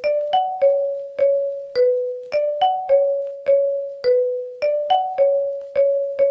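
Ringtone melody: a short phrase of single struck keyboard or mallet notes, each with a sharp attack that fades quickly, moving within a narrow range and repeating over and over.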